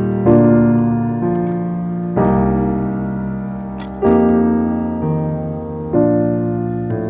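Background piano music: slow sustained chords struck about every two seconds, each fading before the next.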